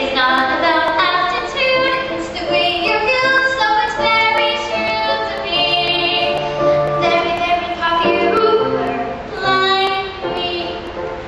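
A girl singing solo into a handheld microphone, a continuous sung melody.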